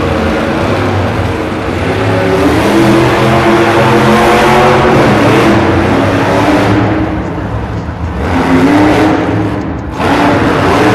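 Earth Authority monster truck's supercharged V8 revving hard, its pitch climbing and falling repeatedly as it is driven on the arena dirt, easing off about seven seconds in before climbing again.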